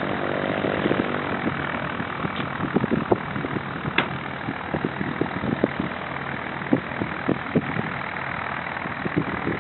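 Cessna 152's four-cylinder Lycoming piston engine and propeller running steadily during the takeoff, with scattered short clicks over it.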